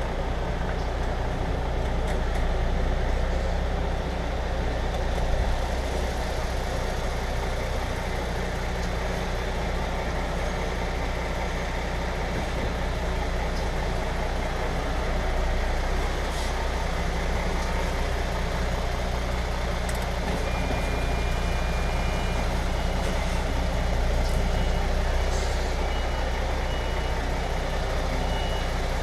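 HGV lorry's diesel engine running steadily while it reverses, with its reversing alarm beeping in a regular on-off pattern that returns in the second half.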